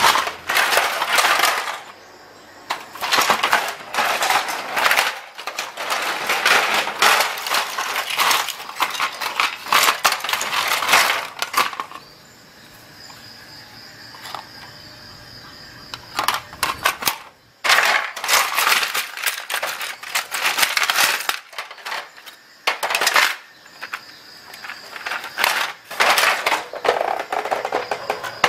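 Plastic housing parts of a Canon Pixma MG3550 inkjet printer clattering, clicking and cracking as they are handled and pried apart by hand. The rapid clicks come in long busy stretches, with a quieter lull of a few seconds about halfway through.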